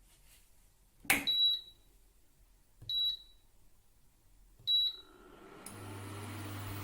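Induction cooktop's touch controls beeping three times, short high beeps a little under two seconds apart as it is switched on and set. Near the end its cooling fan starts, a steady hum that grows.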